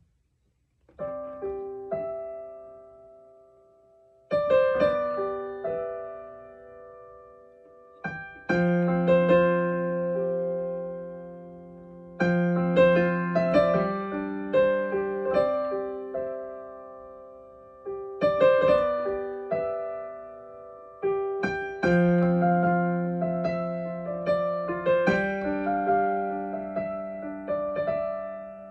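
Solo piano improvisation played slowly and softly: chords struck every few seconds and left to ring and fade, with a few melody notes over them, starting about a second in.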